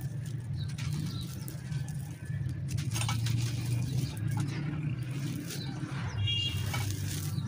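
Dry, gritty clay cakes crushed and crumbled in the hands: short bouts of crunching and grit spilling about once a second, over a steady low hum.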